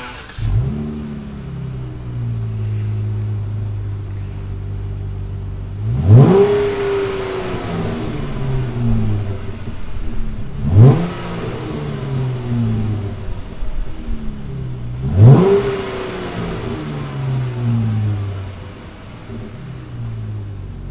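Dodge Charger SXT's 3.6-litre V6 through an aFe MACH Force-Xp 2½-inch stainless steel cat-back exhaust, starting up about half a second in, flaring and settling to a steady idle. It is then blipped three times, about every four and a half seconds, each rev rising sharply and falling back to idle over a couple of seconds.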